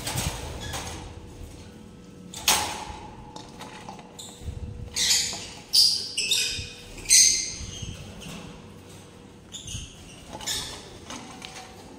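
Pet lovebirds giving short, high-pitched chirps, a quick run of them about halfway through and more near the end. A single knock, likely from the wire cage being handled, sounds about two and a half seconds in.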